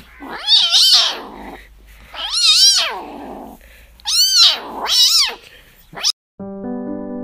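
Kitten meowing loudly: three long meows about two seconds apart, each rising then falling in pitch, then a short final cry. The sound cuts off and instrumental music starts near the end.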